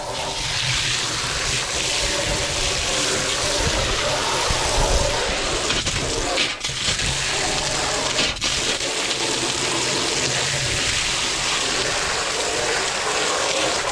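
Garden hose spraying water into a cut-down 50-gallon drum to rinse it out: a steady rushing hiss. It breaks off for an instant twice, about six and a half and eight and a half seconds in.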